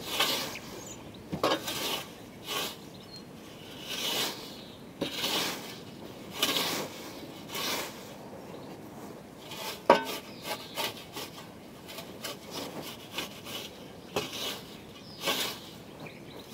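Scythe cutting short lawn grass in short trimming strokes: each stroke is a brief hissing swish, about one a second at an uneven pace. The scythe is a 32-inch riveted Isaac Nash blade on a Scottish Y-frame snath. About ten seconds in comes one sharp knock with a short ring.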